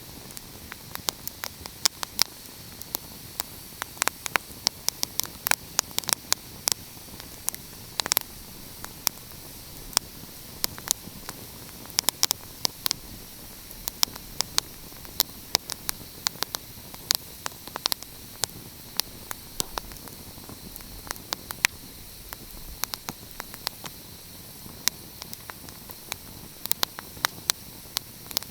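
Wood fire crackling: irregular sharp pops and snaps, several a second, over a steady hiss.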